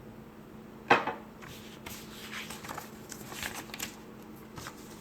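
Plastic model-kit parts handled on a work surface: a sharp clack about a second in, then light rustling and small clicks.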